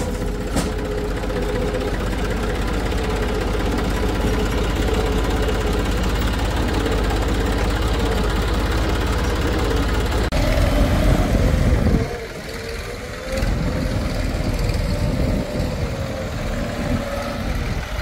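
Heavy diesel machinery engine running steadily, changing abruptly about ten seconds in and dropping briefly in level around twelve to thirteen seconds in.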